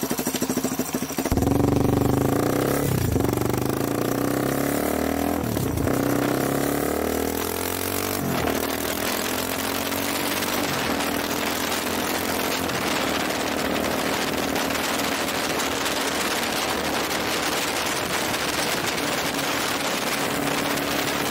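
Yamaha Serow 225's single-cylinder four-stroke engine running through an RSV aftermarket muffler, fed by a Sudco PWK28 flat-slide carburetor. The throttle is blipped several times in the first eight seconds or so, then the engine holds a steady speed with a loud exhaust note.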